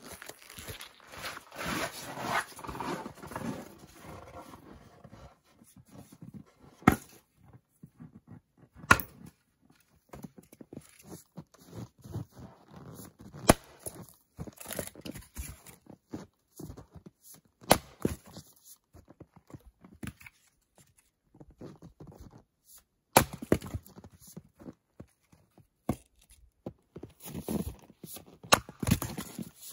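Axe splitting firewood on a chopping block: sharp, separate strikes every few seconds as the blade bites and the log pieces split apart, several in quick succession near the end. It opens with a few seconds of denser, busier noise before the first strike.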